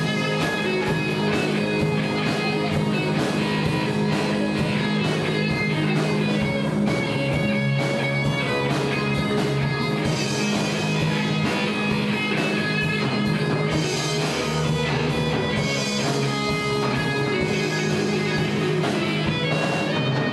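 Live rock band playing an instrumental stretch with no singing: electric guitars and bass over a steady drum-kit beat.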